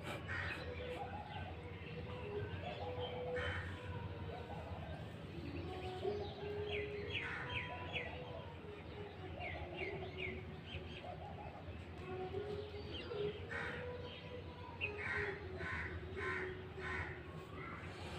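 Birds calling: a harsh call repeated every couple of seconds, with quick high chirps in short series from smaller birds, loudest about 7 seconds in and again near the end.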